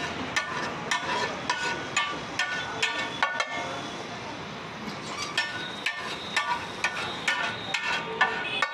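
Steel spatula clinking and scraping on a large flat tawa griddle: quick metallic taps, each with a short ring, about two to three a second, easing off in the middle before picking up again.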